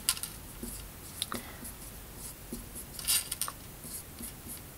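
Sharpie felt-tip marker writing on a small paper card: short scratchy strokes of the tip across the paper, a quick cluster of them about three seconds in.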